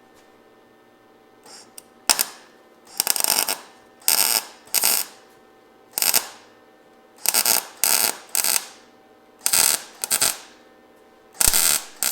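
A welder laying a series of short tack welds on the truck's sheet-metal rocker panel: about eleven short crackling bursts, each under a second, at irregular gaps.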